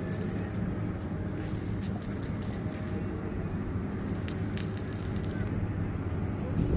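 Large drilling machine running with a steady low hum, with scattered clicks and crackles over it.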